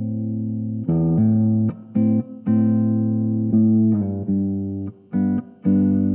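Les Paul-style electric guitar (a Greco EG 500) fitted with vintage pre-OPG-1 Yamaha humbuckers, played through a Positive Grid Spark amp. A held chord rings, then a run of struck chords follows with short breaks between them, and the last one is left to ring near the end.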